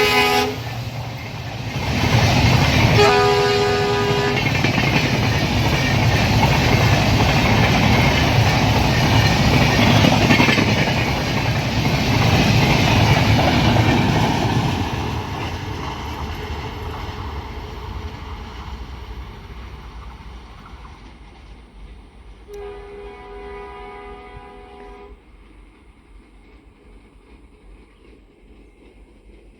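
WDP4D diesel locomotive sounding a short horn blast about three seconds in, followed by the loud noise of the train passing at speed: engine and wheels on the rails. The noise then fades away, with a second, fainter horn blast later as the train recedes.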